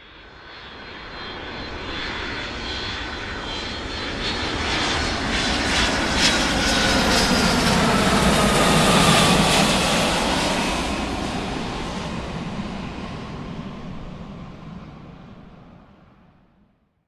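Jet airliner passing overhead: the engine noise swells up from nothing, is loudest about nine seconds in with a whine that falls in pitch, then dies away.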